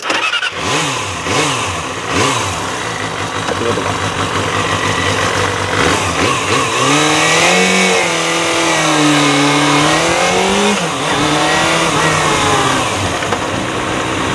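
Kawasaki ZXR250's 250 cc inline-four engine revved in three quick blips, then pulling away under throttle, its high-pitched note rising and falling as the bike rides off.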